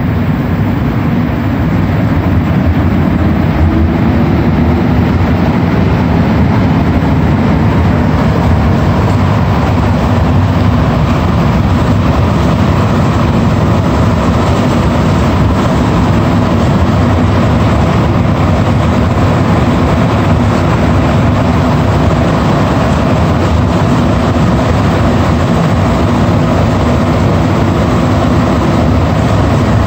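Interior running noise of a rubber-tyred Montreal Métro Azur train car moving between stations: a loud, steady rumble with a low hum.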